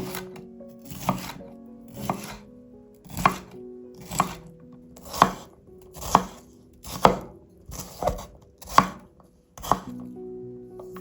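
A knife chopping food on a cutting board with slow, even strokes, about one a second.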